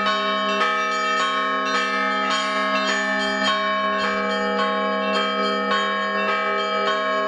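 Orthodox church bells ringing: several bells struck in a steady pattern, about two strikes a second, over the sustained hum of a deep bell.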